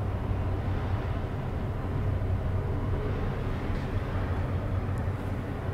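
A large passenger ferry's engines running as the ship passes close by: a steady low hum with a broad rumble above it.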